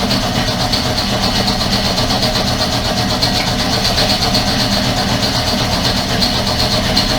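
Air compressor running steadily: a loud, even mechanical drone with a fast regular pulse.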